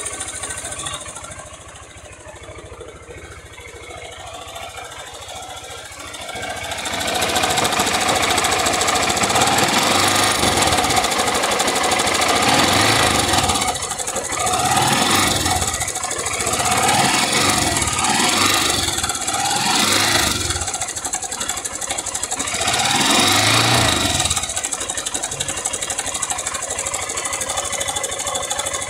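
A 160 cc single-cylinder motorcycle engine running with a rattling knock, "like a rattlesnake", which the mechanic puts down to early piston slap: a worn piston skirt knocking against the cylinder wall. It runs quietly at first and gets louder about seven seconds in, with several blips of the throttle in the middle.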